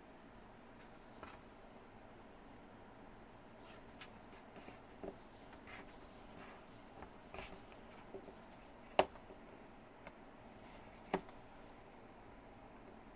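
Faint scratching and light tapping of an X-Acto knife marking and cutting a wooden popsicle stick on a work surface, with two sharper clicks about nine and eleven seconds in.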